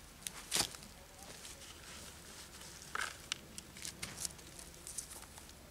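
Dry grass-clipping mulch crackling and rustling as it is pressed and handled by hand: a string of short crackles, the loudest about half a second in and another about three seconds in.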